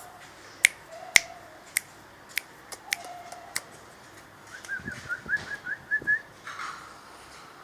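About seven sharp finger snaps spaced irregularly, then a quick run of about ten short rising whistled chirps.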